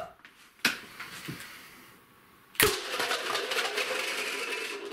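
Homemade pneumatic air cannon charged to 30 PSI fires a shotgun load of Nerf darts with a sharp bang about two and a half seconds in. Plastic cups then clatter and tumble across the wooden table for about two seconds. A single sharp knock sounds about half a second in.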